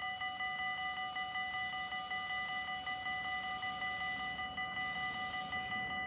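Dutch railway level-crossing warning bell ringing in rapid, even strokes while the barriers are down, signalling an approaching train.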